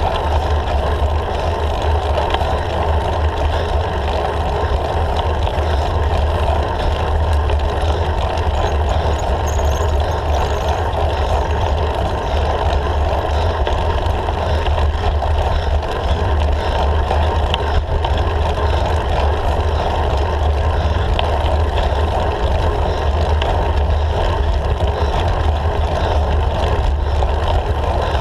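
Steady wind and road rumble on a handlebar-mounted camera's microphone as a road bicycle climbs, a constant low rumble with a hiss above it.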